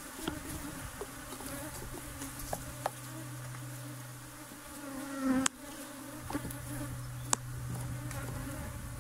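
Honeybees buzzing around an opened hive, a steady hum with bees flying close past the microphone. A couple of sharp clicks cut through, about five and a half and seven seconds in.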